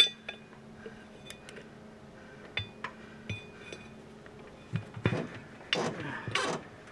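Metal hand tools clinking several times, short ringing taps while working to pull an old plug out of a tractor tire, then louder scraping and rubbing near the end.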